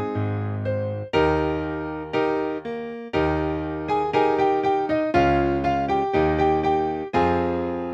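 Slow, sad piano music: chords and melody notes struck about once or twice a second and left to ring over a sustained bass.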